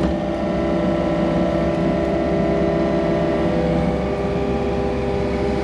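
Excavator engine and hydraulics running steadily, heard from inside the cab while the boom and bucket work the trench; the tone shifts slightly about four seconds in.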